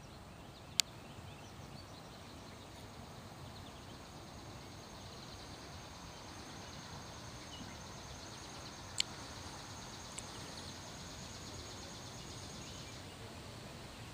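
Faint outdoor ambient noise with a high, rapid trill from about 3 s to near the end. Two sharp clicks, one about a second in and one about 9 seconds in.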